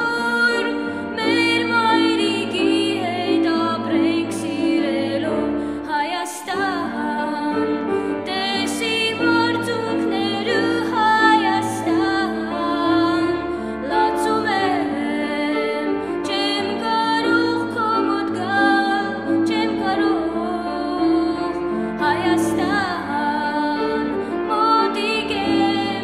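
Background music: a gliding melodic line over a steady accompaniment.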